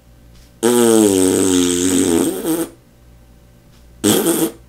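A person making a loud, silly nonsense vocal noise for a hand puppet: a long wavering buzzy call lasting about two seconds, then a second short burst near the end.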